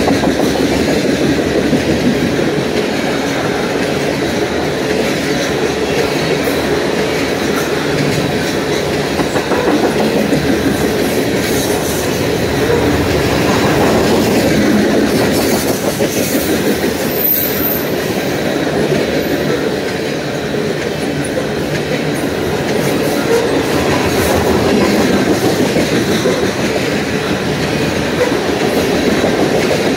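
Freight train of covered hopper cars rolling past close by: a steady rumble and clatter of steel wheels on the rails, with a short high-pitched note about seventeen seconds in.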